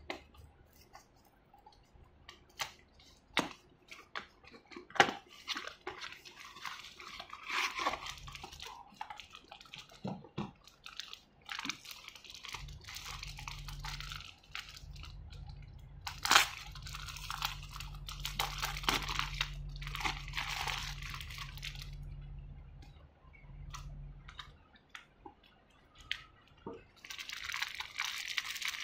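Thin plastic packaging bags crinkling in spells as hands unwrap small plastic toy parts, with scattered taps and clicks of cardboard and hard plastic in the first few seconds. A low steady hum sits underneath for a stretch in the middle.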